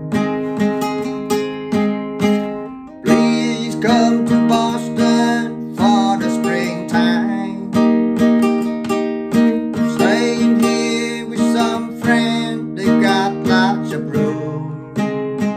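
Nylon-string classical guitar with a capo playing chords, with a man singing along from about three seconds in.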